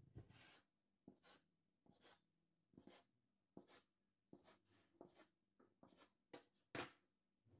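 Knife blade cutting through soft dough and tapping the wooden board: about a dozen faint, short taps at irregular intervals, the loudest near the end.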